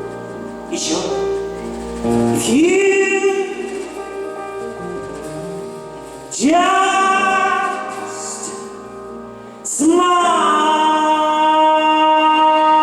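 Live music: a singer's wordless long held notes, each scooping up into pitch, over accompaniment. New notes begin about two and a half, six and a half and ten seconds in, and the last is held to the end.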